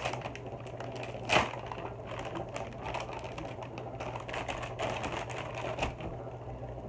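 Thin plastic carrier bag rustling and crinkling as it is handled, in irregular crackles, with one sharper crackle about a second and a half in.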